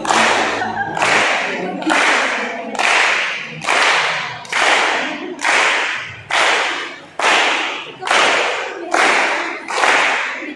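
A group of people clapping hands in unison to a slow, steady beat of about one clap a second, each clap echoing and dying away in a bare hall. Group singing stops about a second in.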